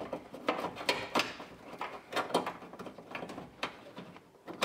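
Irregular clicks, light knocks and scrapes of a metal door check strap being worked down around the wiring and pulled out through the sheet-metal inner door of a Jeep Liberty. The sounds are quieter near the end.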